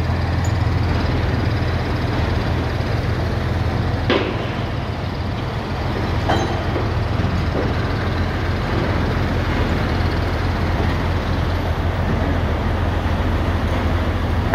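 Truck-mounted crane's engine running steadily with a low hum, with two sharp metallic knocks of steel sections about four and six seconds in.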